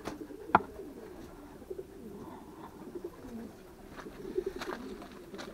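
Homing pigeons cooing softly in the loft, low wavering coos, with one sharp click about half a second in.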